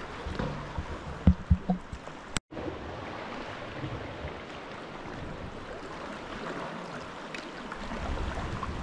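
Water lapping and splashing around a sea kayak as it is paddled, with a few low knocks about a second and a half in and a brief break in the sound a little later.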